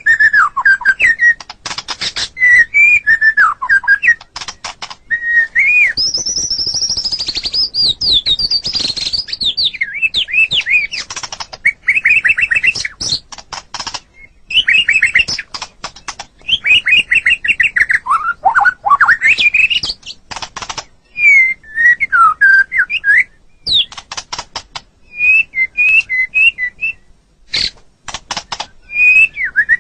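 White-rumped shama singing a loud, varied song: whistled phrases that slide up and down, a high fast trill, and many sharp clicking, rattling notes between them.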